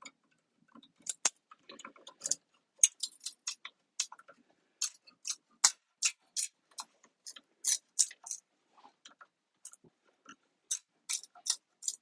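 Hard plastic clicking and snapping as plastic top pieces are pried off the 18650 lithium-ion cells of a Tesla Model S battery module: an irregular run of sharp clicks, several a second, some much louder than the rest.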